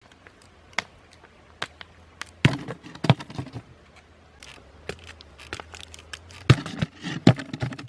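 Irregular sharp clicks and knocks, a few louder than the rest, over a faint steady low hum.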